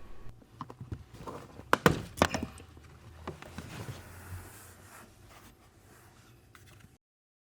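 Plastic automatic dead pedal being pulled and worked free from its mounting in the footwell: a run of knocks and clicks, the loudest two close together about two seconds in, then faint handling that cuts off to silence near the end.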